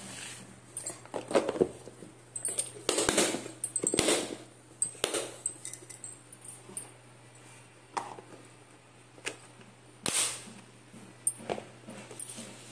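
Plastic lunch-box containers being closed and stacked: lids pressed on and clipped shut, and boxes knocking on the counter. The sound comes as a string of irregular clicks, taps and rustles, busiest in the first few seconds.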